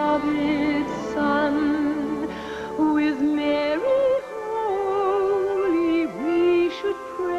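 A Christmas song with a solo voice singing long held notes with vibrato over musical accompaniment. The melody steps up about four seconds in.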